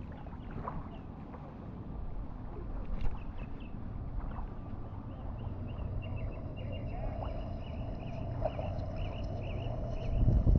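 A bird singing a run of short, quick chirping notes, repeated several times a second, over a steady low rumble of wind and water.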